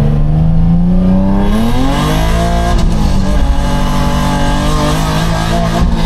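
Car engine running under load. Its pitch climbs slowly, rises more sharply about two seconds in, then holds steady.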